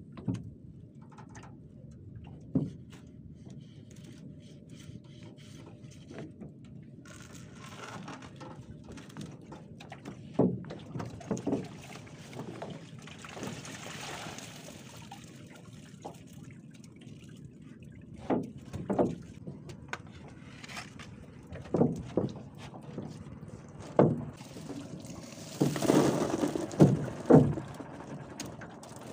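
Water pouring and splashing as a net fish trap is hauled out of the lagoon by hand, with scattered knocks and thumps against the boat and stakes; the splashing and knocks are loudest near the end.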